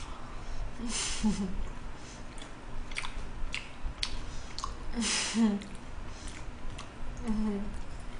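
Close-up chewing of braised pig's trotters (jokbal), with sharp wet mouth clicks and smacks scattered through. There are a few short low hums, about a second, five seconds and seven seconds in.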